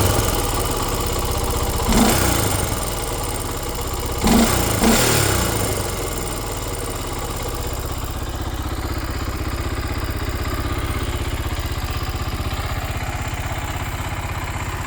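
Honda 300EX ATV's single-cylinder four-stroke engine running. The throttle is blipped about two seconds in and twice more around four to five seconds, then it settles to a steady idle.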